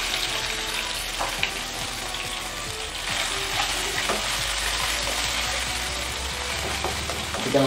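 A tempering (chhunk) of cumin, dry chillies, ginger and tomato frying in hot ghee in a pan. It sizzles steadily while being stirred, with a few clicks of the spoon against the pan.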